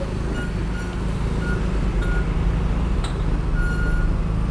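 Motor scooter engine running with road and wind rumble while riding. Short high beeps sound several times, with one longer beep near the end.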